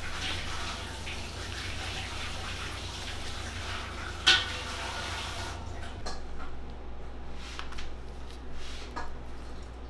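Steady room noise with a low hum, with one sharp click about four seconds in; later, light scattered rustles of a plastic piping bag being squeezed and handled.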